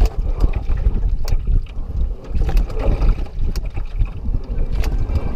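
Canoe being rowed with an EZ-Row oar rig, with a sharp knock from the oars about once a second at each stroke. Water splashes and wind buffets the boat-mounted microphone with a heavy rumble.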